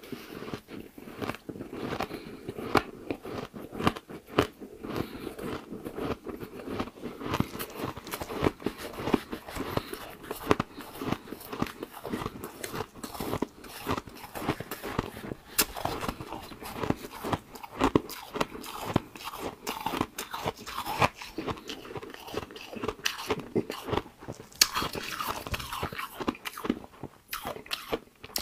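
A person biting and chewing mouthfuls of white ice: a dense, continuous run of crisp crunches and crackles.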